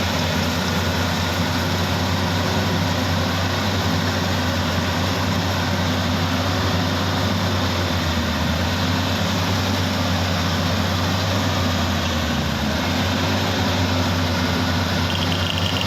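Rice combine harvester running steadily while harvesting: a constant engine drone with a strong low hum and a wide hiss of machinery above it.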